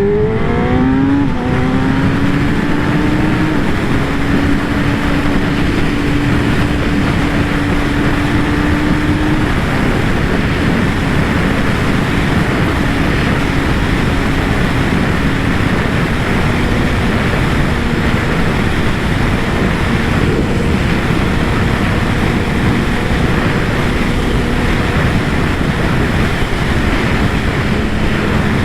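Kawasaki ZX-10R inline-four sport bike engine pulling up through the revs at the start, then holding steady cruising revs, dropping a little about nine seconds in, under heavy wind rush.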